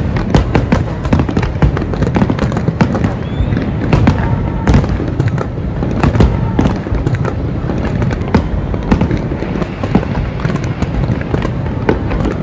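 Fireworks going off in rapid succession: dense crackling and popping bursts, several a second, over a continuous low rumble of booms, with a few whistling glides.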